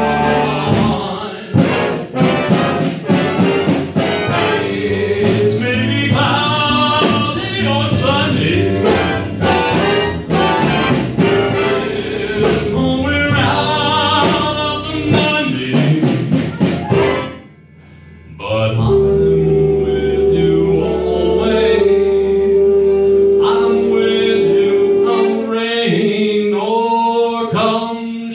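Big band jazz with a brass section playing loud ensemble figures over the rhythm section, punctuated by sharp accents. About two-thirds of the way through the band cuts off for about a second, then comes back in under a long held note.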